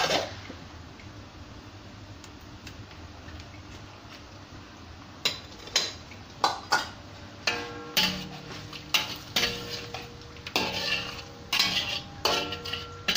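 A metal spatula knocking and scraping against a metal wok while fish ball slices are stirred in broth, the wok ringing after each strike. After a clatter at the very start and a few quiet seconds, the strikes begin about five seconds in and come about twice a second.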